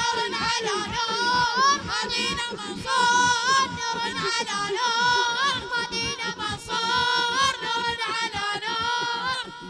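Boys singing an Arabic devotional chant, a sung melody that carries on throughout, over steady rhythmic hand-clapping from the crowd.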